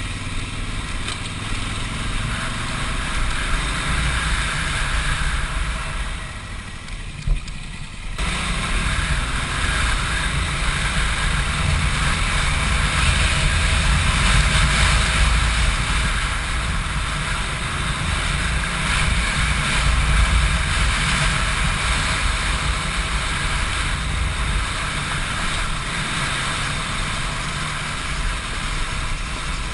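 Big adventure motorcycle's engine running as it rides a rough dirt trail, mixed with wind and road rumble on the on-board microphone. There is a single knock about seven seconds in, and the sound jumps abruptly louder about a second later.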